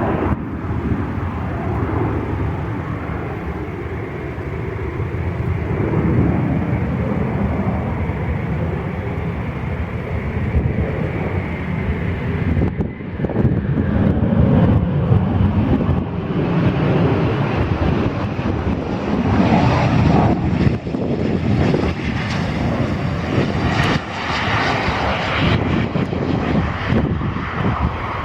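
Eurofighter Typhoon's twin EJ200 turbofan engines running as the jet comes in to land: a loud continuous jet rumble that swells and fades as the aircraft passes.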